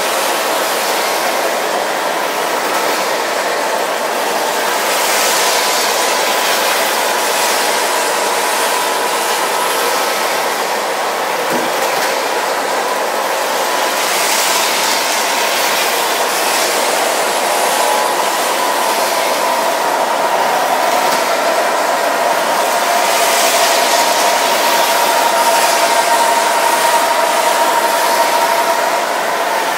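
O scale model trains running on the layout: a steady, continuous running noise of small electric motors and metal wheels on the track, with a faint whine that shifts slightly in pitch in the second half.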